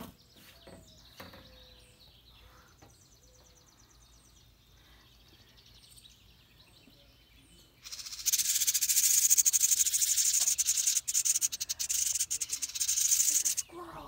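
Faint scattered bird chirps, then about eight seconds in a brood of nestlings inside a birdhouse starts a loud, high-pitched, raspy begging chorus that runs for about six seconds.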